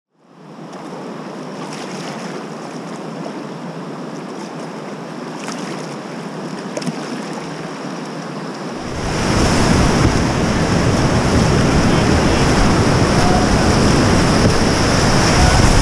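River water rushing past a kayak, heard from a camera on the boat: a steady wash that fades in at the start. About nine seconds in it jumps louder and fuller as the kayak runs into a whitewater rapid and churning water surrounds the boat.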